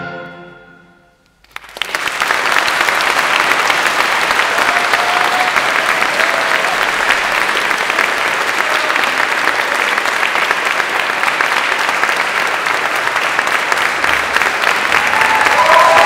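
An orchestra's final chord dies away into a moment of silence, then a concert audience starts applauding and keeps clapping steadily. Near the end some cheering rises over the applause.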